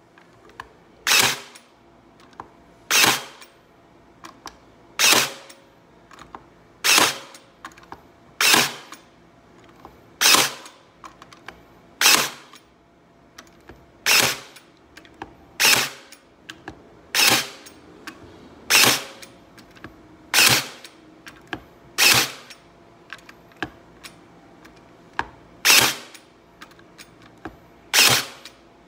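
Aplus D5416 cordless battery-powered carpet stapler firing staples into a wooden board: a sharp shot about every one and a half to two seconds, some sixteen in all, with lighter clicks between shots.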